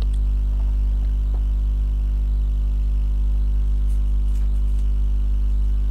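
Steady low hum with a stack of even overtones, unchanging throughout: constant background hum on the recording.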